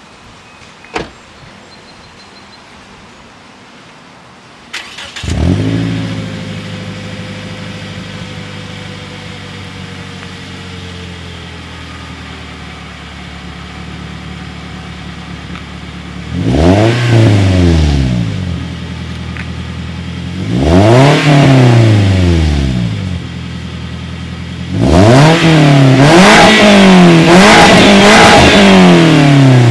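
2008 Scion xD's 1.8-litre four-cylinder engine with a newly fitted custom exhaust: after a click, it cranks and starts about five seconds in, flares up and settles to a steady idle. It is then revved twice and, near the end, blipped several times in quick succession before dropping back.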